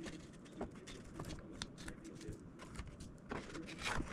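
Fingers handling balsa wood: faint, irregular small clicks and scrapes as a balsa tab glued to a hinge is worked at and picked loose.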